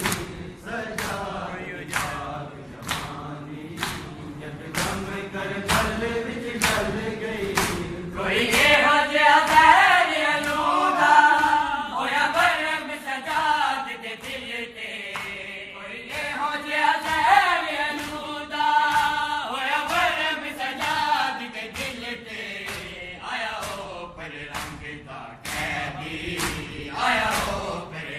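A crowd of men chanting a noha together over a steady rhythm of sharp slaps, hands striking bare chests in matam about every two-thirds of a second. The chanting swells loudest about a third of the way in.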